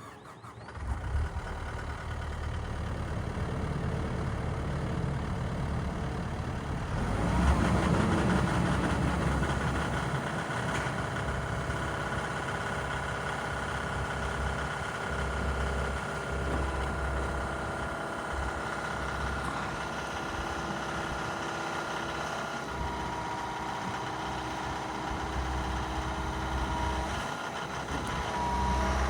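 Komatsu PC138USLC-11 excavator's diesel engine starting about a second in, then running steadily. It runs louder for a couple of seconds about a quarter of the way through, then settles back.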